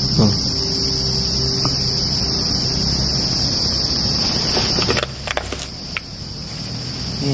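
Insects in a steady, high-pitched chorus over a low rumble. The rumble drops away about five seconds in, with a few clicks and rustles as it does.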